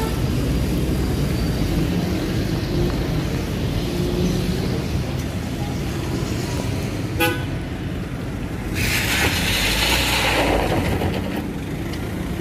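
Busy street traffic with steady engine rumble, a short vehicle horn toot about seven seconds in, then a rushing hiss lasting a second or two.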